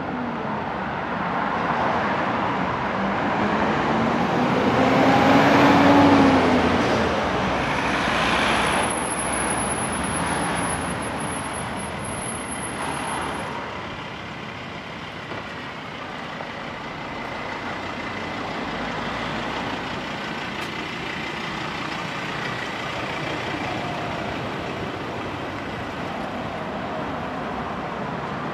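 A motor vehicle passes close by on the street, loudest about six seconds in, with its engine note rising as it nears. Steady street traffic noise follows.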